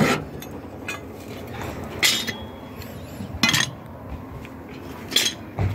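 Rusty scrap metal clanking as a heavy iron bar is handled among sheet-metal pieces: a handful of separate metallic knocks with a short ring, a second or two apart, and a duller thud near the end.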